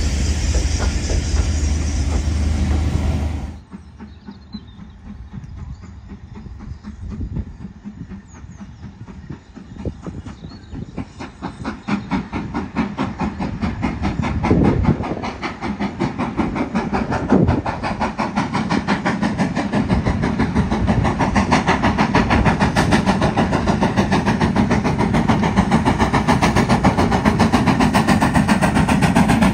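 Passenger coaches rolling past close by for the first few seconds. Then, after a cut, a BR Standard Class 4MT 2-6-4T steam tank locomotive approaches under steam: its exhaust beats are faint at first and build into a fast, even chuffing that grows steadily louder.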